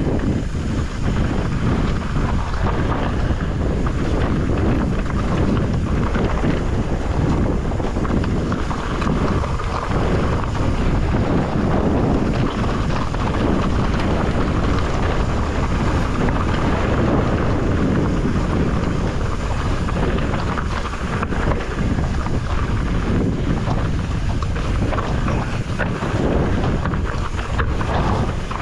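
Wind buffeting a GoPro microphone while a mountain bike rolls steadily down a rocky desert trail, its tyres running over loose dirt and stones.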